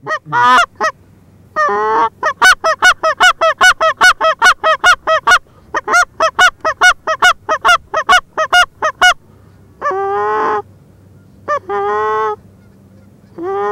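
Goose calls: a fast run of short, loud clucks, about four a second, then a few longer drawn-out honks near the end.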